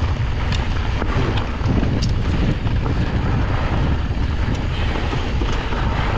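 Wind buffeting the microphone of a chest-mounted camera on a mountain bike ride, over a steady low rumble from the tyres on the trail, with a few brief clicks from the bike.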